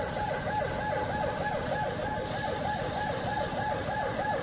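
Ambulance siren in a fast yelp: quick falling sweeps repeating several times a second, over low traffic noise.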